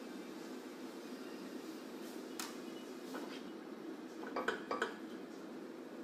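Slotted spatula knocking and scraping against a frying pan as chicken and vegetables are stirred: a single clink about two and a half seconds in, then a quick run of clinks a little after four seconds, over a steady low hum.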